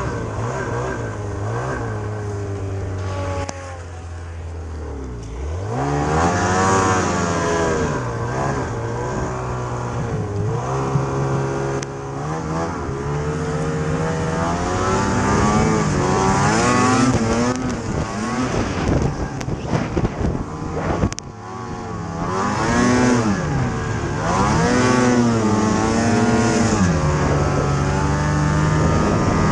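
Ski-Doo snowmobile engine revving up and down over and over as the sled is ridden through deep snow, its pitch climbing and falling every second or two. About two-thirds through the sound drops out briefly, then the engine revs up again.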